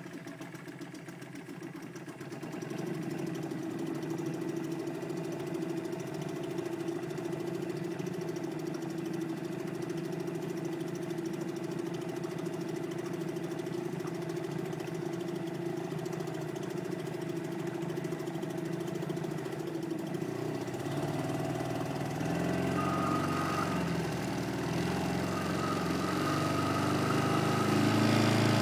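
Small outboard motor running steadily, driving an inflatable dinghy along; about twenty seconds in it grows louder and changes in pitch.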